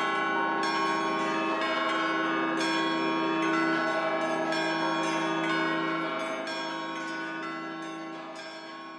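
Bells chiming in a repeated pattern over a held, ringing chord, closing out a Christmas song and fading away over the last few seconds.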